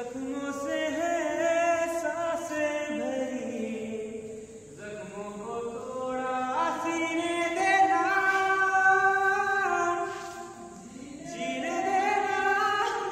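A man singing a slow melody, holding long notes, in three phrases with short breaks between them.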